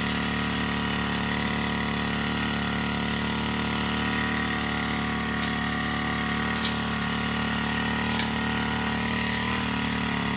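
Small petrol engine of a brush cutter running steadily while cutting grass, with a few short sharp ticks in the middle.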